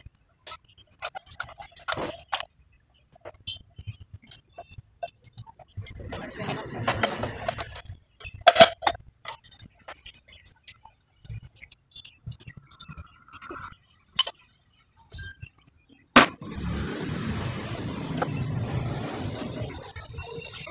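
Metal tools clinking and scraping on a motorcycle engine as the cylinder head nuts are worked loose with a spanner: scattered sharp clicks, with a couple of seconds of rasping metal noise midway and a longer stretch near the end.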